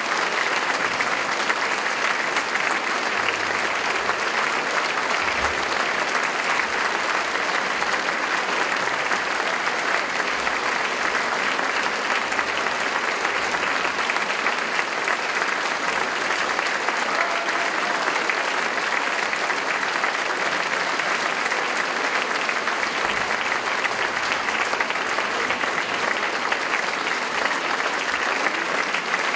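Concert audience applauding, a dense, steady clapping that holds at an even level throughout.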